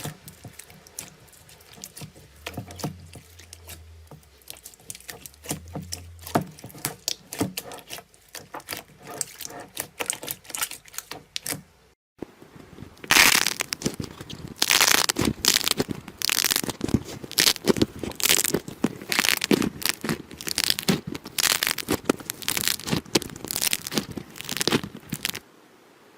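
Slime being squeezed and poked by hand, giving a dense run of small clicks, pops and crackles. After a short break about halfway, a louder, busier stretch of crackling and popping follows.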